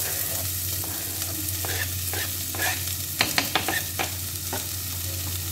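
Chopped onions sizzling as they drop into hot oil and frying garlic in a stainless steel pot, pushed off a plastic cutting board with a knife; a quick run of sharp taps and clicks from the knife and board comes about three seconds in.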